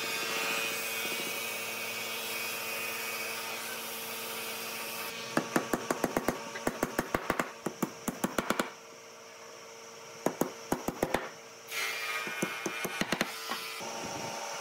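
Workshop noise with a steady faint hum, broken around the middle by two quick runs of sharp wooden knocks, several a second: wooden dowels being tapped into glued holes in pine boards.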